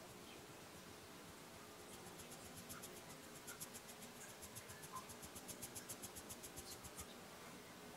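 A fine-mesh sieve being shaken to sift almond flour and powdered sugar onto macaron meringue: a fast, even run of light ticks, about six a second. The ticks start about two seconds in and stop about seven seconds in.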